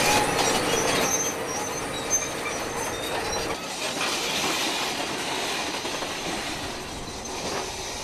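Crawler bulldozer working, with short high-pitched squeals over a steady engine tone. About three and a half seconds in this gives way to the hiss of a fire hose spraying water.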